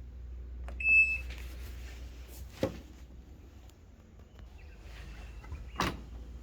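Short high electronic beep from a top-load washing machine's control panel about a second in, over a low hum that fades about halfway through. Two sharp knocks follow, one in the middle and one near the end.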